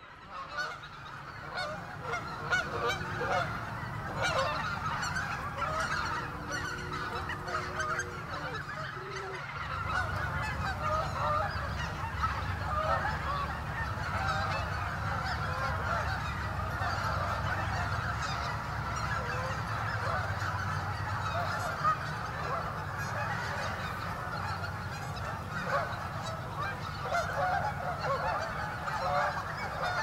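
A large flock of Canada geese and white-fronted geese calling all at once, a dense, continuous chorus of overlapping honks, with a low steady rumble underneath.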